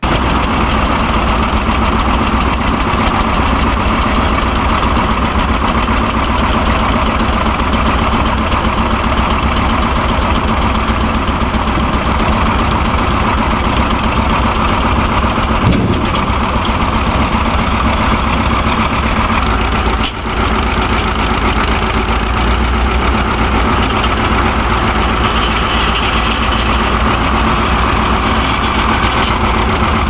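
Old farm tractor's engine running steadily at a constant speed, with one brief drop in level about two-thirds of the way through.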